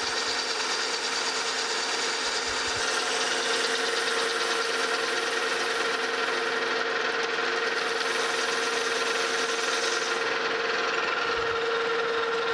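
Metal lathe running, turning a bronze bushing held on an expanding mandrel between centers: a steady machine hum with a hissy cutting sound on top. The hiss drops away about ten seconds in, when the bushing is slipping on the mandrel.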